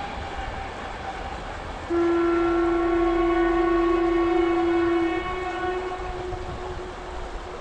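Train horn sounding one long steady blast of about three seconds over the noise of a passing train, then trailing away fainter.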